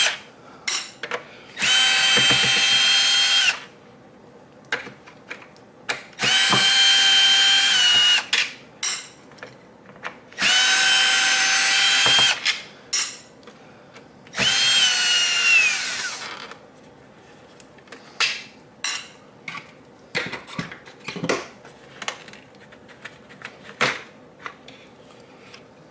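Cordless drill/driver running in four bursts of about two seconds each, a steady whine as it backs out the screws holding the soundbar's speakers; the last burst winds down in pitch. After it, scattered clicks and knocks of parts being handled.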